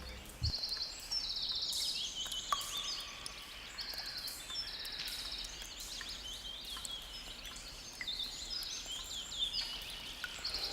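Birds chirping and calling, with a short buzzy high trill that repeats about once a second over faint background hiss.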